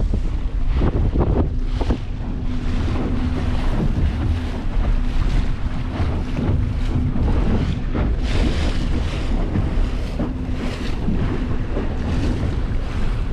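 Outboard motor of a Stabicraft 2050 Supercab aluminium boat running at low speed with a steady low hum, under heavy wind buffeting on the microphone and chop splashing against the hull.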